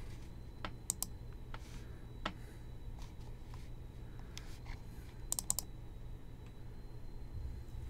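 Sparse clicks of computer keyboard keys, with a pair about a second in and a quick run of four about five seconds in, over a steady low hum and a faint high whine.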